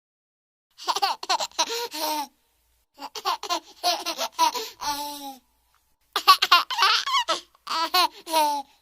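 A baby laughing and babbling in three bursts, each a couple of seconds long, with silence between them.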